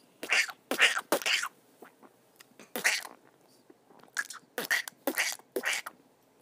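A series of short, high, squeaky chattering calls, about nine in clusters, passed off as a pet chipmunk talking on the phone.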